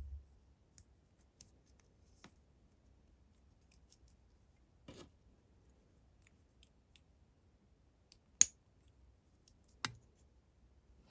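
Handling of small plastic LEGO pieces and packaging: scattered faint ticks and a few sharp clicks. Two loud clicks come about eight and ten seconds in, the first the louder.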